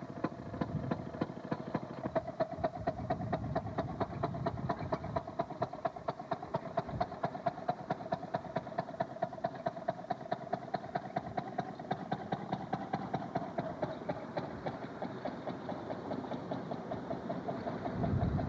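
A railroad motorcar's two-stroke engine running, its exhaust popping in a steady, even beat, with a steady whine underneath.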